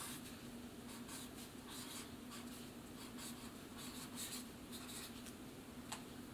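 Marker being written on paper: faint, irregular strokes as a word is lettered, over a steady low hum.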